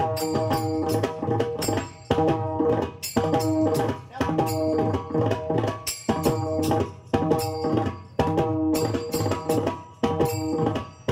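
Pakhawaj drumming a dense, fast rhythm in a pattern that repeats about every two seconds, over steady held tones underneath.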